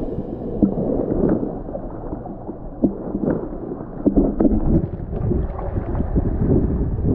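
Muffled sloshing and bubbling of seawater around the microphone, with scattered small pops and knocks.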